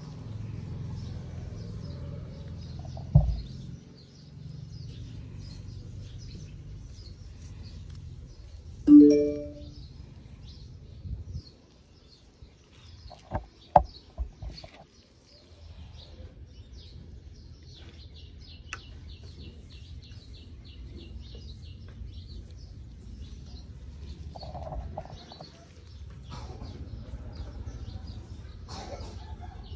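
Small birds chirping over and over above a low steady hum, broken by a few sharp knocks and one short, loud pitched sound about nine seconds in.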